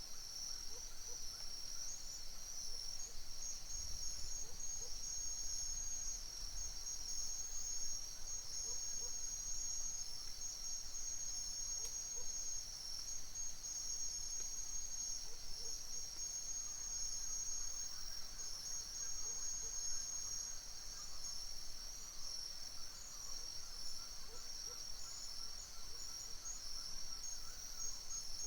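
Dense, continuous chorus of crickets and other insects: a steady, high-pitched trilling that never breaks, with faint short calls lower down now and then.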